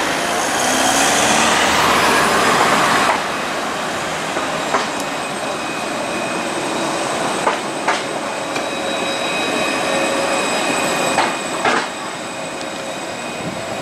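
Articulated low-floor tram running past at street level: a steady whine with several high tones and a few sharp clicks from the wheels on the track. A car passing in the first three seconds is the loudest part.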